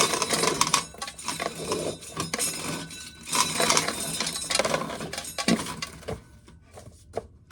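Dried corn kernels rattling and clinking into a pail as ears of corn are shelled, in busy bouts that thin out near the end.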